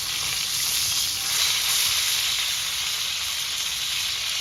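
Steady sizzling hiss of food cooking over a wood fire, with a faint low rumble underneath.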